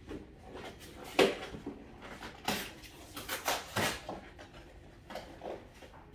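Clatter and rustling of belongings being handled and unpacked: a run of knocks and clinks, the sharpest about a second in and a busy cluster in the middle.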